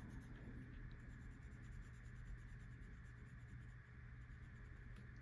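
Faint scratching of a marker on paper, colouring in a shape with quick, even back-and-forth strokes, with a short pause about a second in.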